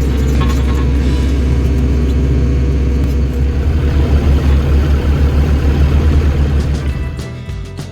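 Diesel engine of a compact excavator running loudly with a deep rumble, throbbing unevenly in the second half and dropping away about seven seconds in as background music comes back in.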